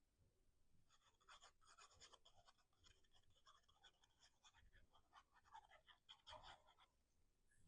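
Faint scratching and rustling of cardstock being handled and pressed into place as a glued paper piece is positioned, many small irregular scrapes and clicks.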